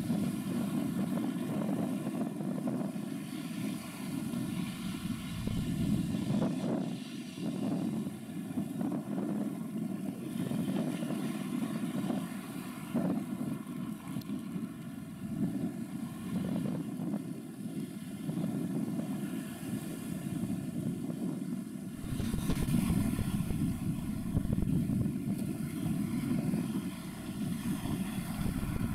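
Steady low drone of ship engines from a harbour tug and a large container ship, with faint steady tones above it. About two-thirds of the way through it grows louder and deeper.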